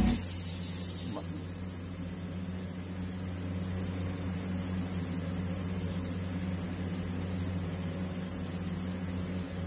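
Airbrush spraying paint: a steady hiss of air, over a steady low mechanical hum.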